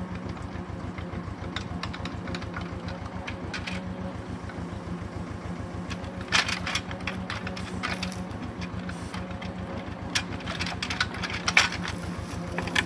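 Ursus C-328 tractor's two-cylinder diesel engine running at a steady throb while driving the hydraulic crane, with the grapple knocking against logs a few times, loudest about six seconds in and again around eleven to twelve seconds.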